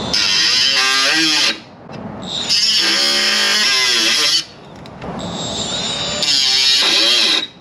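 Cordless Milwaukee cutoff tool with a small abrasive wheel cutting the rivet heads off a window regulator. Three cuts of one and a half to two seconds each, the motor's pitch wavering as the wheel bites into the metal.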